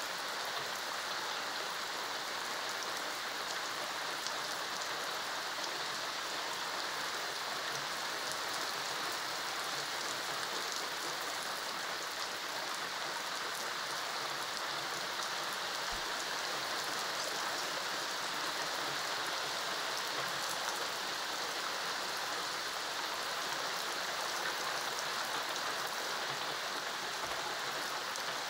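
Heavy rain falling steadily on paving, puddles and garden plants: a dense, even hiss with the patter of countless drops.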